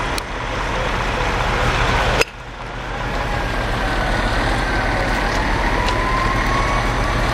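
Fire engine's diesel running with a steady low rumble. From about two seconds in, a siren wails, rising and falling slowly. A sharp click comes at about two seconds, where the sound briefly dips.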